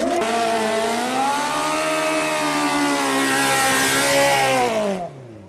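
Motocross motorcycle engine held at high revs under full throttle for about five seconds, its pitch rising a little then sagging slightly. Near the end the revs drop sharply as the throttle closes.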